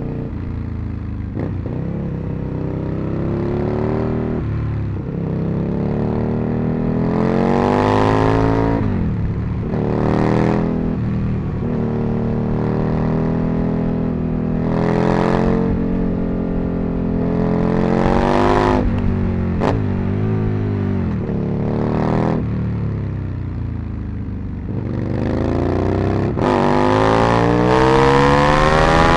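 Aprilia RSV Mille's 998 cc V-twin engine under way, revving up again and again with the pitch climbing and then dropping sharply at each gear change, and a long pull through the last few seconds.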